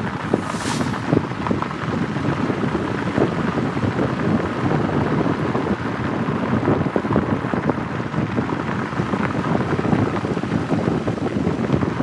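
Wind buffeting the microphone: a steady rushing noise with crackle and irregular gusts. A short falling whoosh sounds about half a second in.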